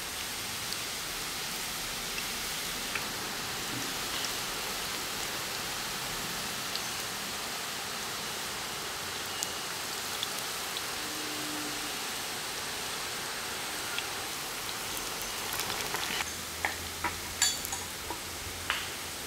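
Ribbon pakoda strips deep-frying in hot coconut oil in a wok: a steady sizzling hiss with scattered faint crackles, and a few louder sharp clicks near the end.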